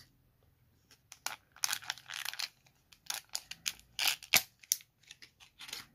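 Clear plastic toy wrapper crinkling and rustling in the hands as a small plastic figure is worked out of it, in irregular crackly bursts with the sharpest crackle about four seconds in.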